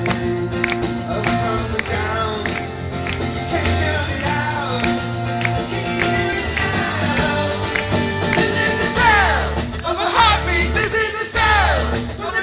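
Live acoustic rock performance: strummed acoustic guitar over a steady bass, with sung vocal lines that grow louder in the second half.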